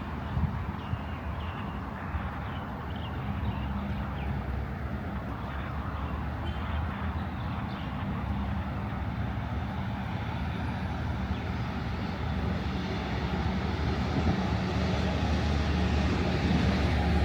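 A low engine drone, steady in pitch, growing gradually louder toward the end, as from a passing motor vehicle or aircraft heard from a park path.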